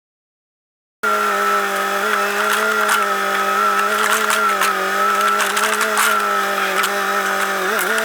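Chainsaw running at high, steady revs while cutting wood, with scattered sharp ticks over the engine note. It starts abruptly about a second in, and the revs dip briefly near the end.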